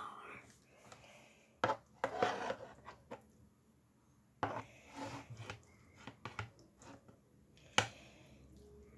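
Metal spoon scraping and clinking against a bowl while scooping rice, close to the microphone: scattered short scrapes and clicks, with one sharp click near the end.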